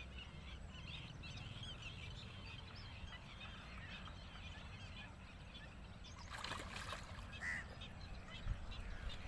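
Birds chirping faintly in the background, then, about six seconds in, a burst of splashing as a hooked mrigal carp thrashes at the surface while it is hauled to the bank on a hand line.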